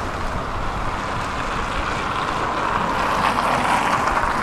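Tram running along the line, heard from inside the car: a steady rumble of wheels on rails with a faint steady whine, growing somewhat louder a little past halfway.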